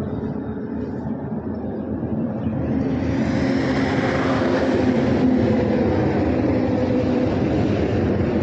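Steady rumble of a heavy diesel vehicle engine running, growing louder about three seconds in.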